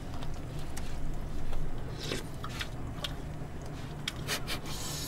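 Eating and utensil sounds: chopsticks and plastic spoons clicking and scraping against disposable plastic food containers, a few light taps and short scrapes over a low steady hum.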